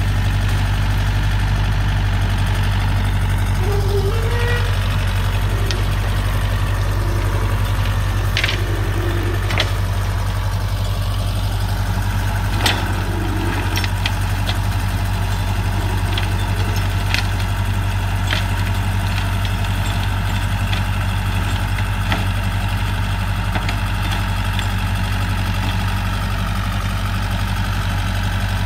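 Compact cab tractor's diesel engine running steadily under load as it drives through scrub with a rear-mounted mulcher, a low, even drone. A few sharp cracks and clicks stand out about 8, 10 and 13 seconds in.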